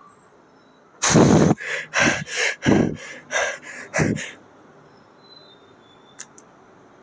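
A man breathing hard through a heavy flat dumbbell bench press: a quick run of about eight sharp, noisy puffs and gasps over some three seconds, then two short clicks near the end.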